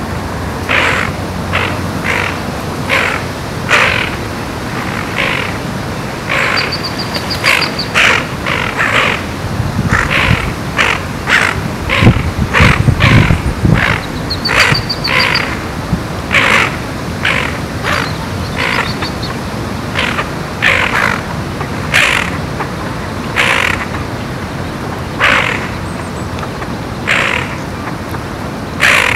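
Harsh bird calls repeated roughly once a second, with short high trills at a few points. A low rumble comes in about halfway through.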